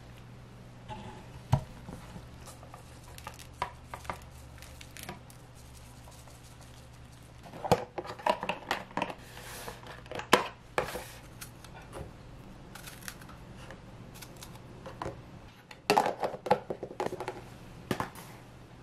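Paperboard lunch box being handled and its lid pressed shut: scattered light taps, scrapes and rustles in three short clusters, over a low steady hum.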